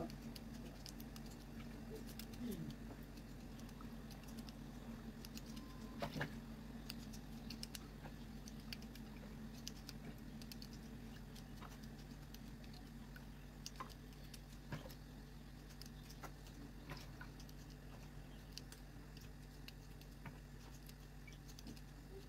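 Small kitchen knife cutting fresh green beans by hand, with irregular soft clicks and snaps as the pieces drop into a glass bowl, over a steady low hum.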